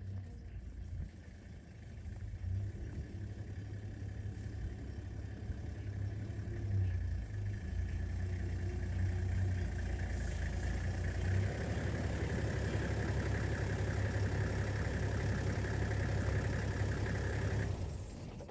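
A vehicle engine running steadily with a low hum. It grows louder over the first few seconds and drops away shortly before the end.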